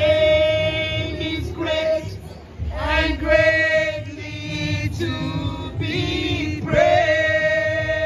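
Worship song sung by a woman into a handheld microphone, with a man and another woman singing along. The song moves in long held notes with short breaks between phrases.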